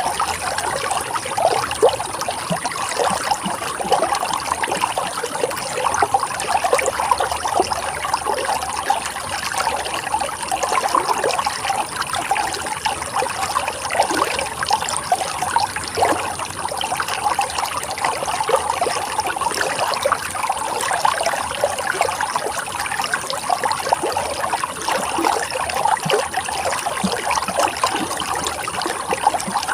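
Running water trickling and babbling steadily, like a small stream, with no let-up.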